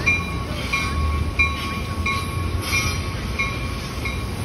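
Metra bilevel commuter train passing over a steel girder railway bridge: a steady low rumble, with a ringing metallic tone repeating about every two-thirds of a second.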